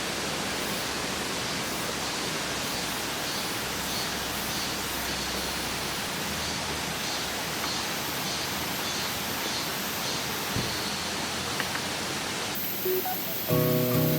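Steady rushing of a mountain valley stream, an even wash of water noise, with faint repeating high chirps over it.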